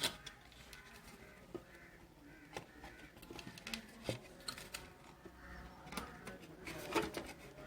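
Scattered light clicks and knocks of parts being handled as an electric motor is fitted into a juicer's plastic body, the loudest knock near the end.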